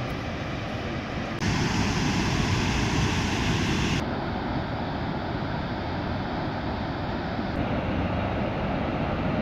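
Steady rushing of the Yellowstone River's Upper and Lower Falls, heavy in the low end. The rush changes abruptly in loudness and tone three times: about a second and a half in, at four seconds, and about three-quarters of the way through.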